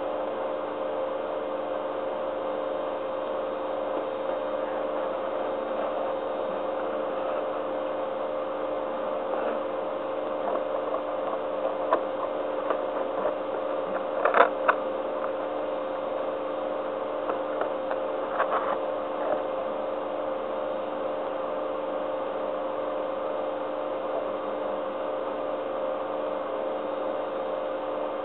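Steady electrical hum holding a couple of fixed tones, broken by a few short knocks about twelve, fourteen and eighteen seconds in.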